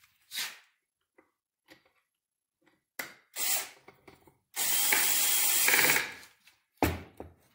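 Cordless drill-driver driving a screw into a wooden crib part: a few short trigger pulls, then one steady run of about a second and a half. A sharp knock follows near the end.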